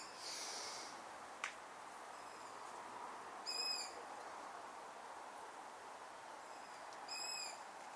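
A bird at night repeating a short, high call about every three and a half seconds, over a steady faint hiss.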